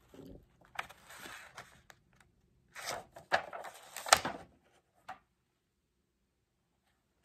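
Handling noise: two spells of rustling, one about a second in and a longer one around three to four seconds in, with a few light clicks and knocks.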